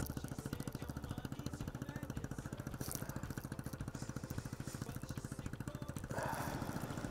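Motorcycle engine idling with a steady, rapid, even pulse. A brief rush of noise comes about six seconds in.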